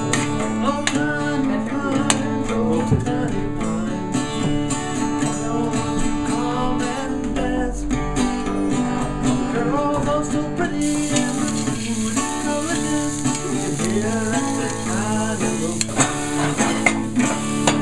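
Acoustic guitar music plays throughout. From about eleven seconds in, the hiss of vegetables sizzling in a pan on a gas burner joins it.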